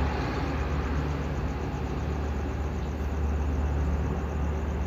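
Steady low background rumble with a hiss over it, unchanging and with no distinct events.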